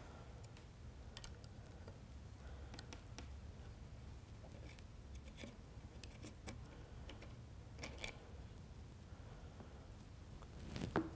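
Faint scattered clicks and taps of a 3/16-inch Allen wrench turning the action screws out of a rifle's wooden stock, with a couple of sharper clicks about eight seconds in and near the end.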